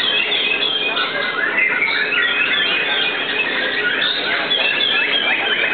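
White-rumped shamas (murai batu) singing in a dense chorus of overlapping whistles, chirps and squeaky calls.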